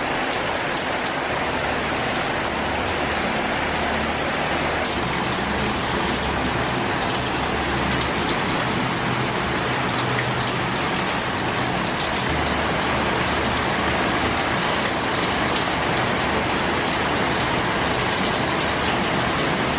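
Heavy rain pouring steadily, with a low hum coming and going underneath.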